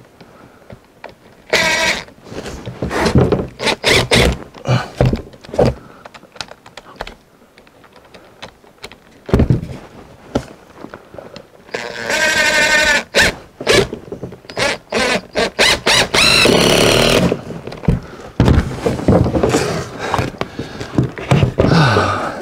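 Cordless impact driver driving screws through a new 2x4 into the roof truss and plywood, in several short runs of the motor, the longest near the middle. Between runs, knocks and thunks from handling the wood and tool.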